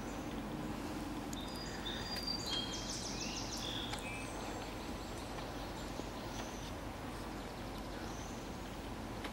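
Small birds chirping in short, high-pitched notes, with a quick trill, mostly in the first half, over steady outdoor background noise.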